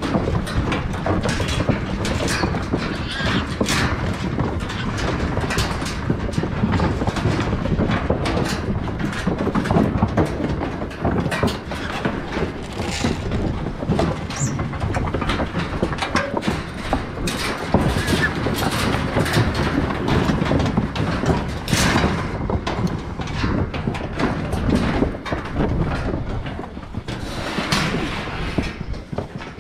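Trapped hogs crowded in a wire-mesh cage trailer, jostling and shifting so that the metal panels rattle and knock without a break.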